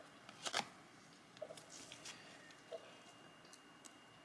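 Quiet handling of trading cards: a brief rustle about half a second in, then a few faint ticks and scrapes as cards are separated and set down.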